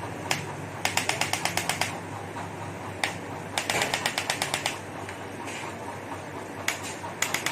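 Electric chiropractic adjusting gun firing: two rapid trains of sharp clicks, about nine a second and each lasting about a second, with single clicks between and a low steady hum underneath.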